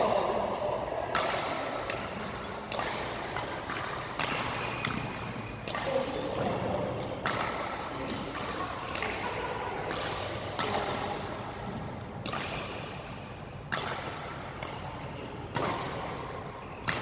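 Badminton rally: rackets hitting the shuttlecock in sharp cracks roughly once a second, each echoing in a large sports hall.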